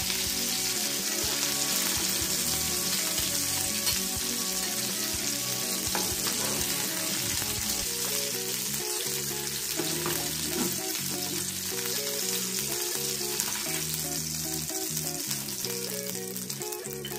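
Small chapila fish frying in hot oil in a pan, the oil sizzling steadily, with a few short scrapes and taps of a metal slotted spatula against the pan as the fish are lifted out.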